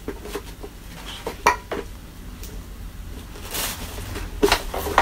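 Clicks and knocks of plastic, with rustling, as a paper dust bag with a cardboard collar is fitted into the dust compartment of a Samsung canister vacuum cleaner. The sharpest clicks come about a second and a half in and twice near the end.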